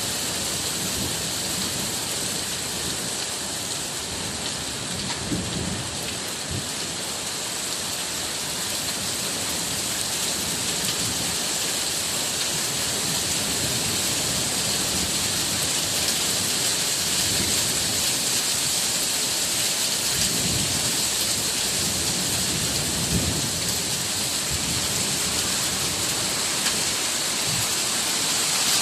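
Steady rain falling, a dense even hiss, with low rumbles swelling about five seconds in and again around twenty seconds in.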